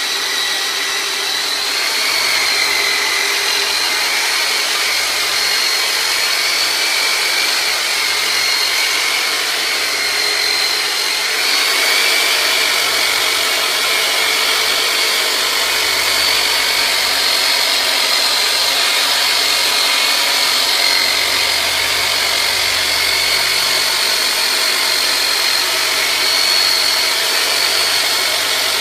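A handheld electric massage tool, called a turbinator, runs steadily with a high motor whine that wavers slightly in pitch.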